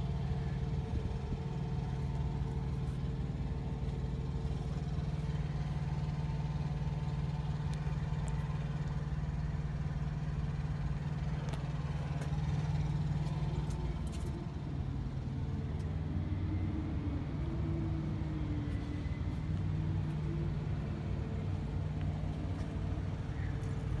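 An engine idling steadily with a low, even hum.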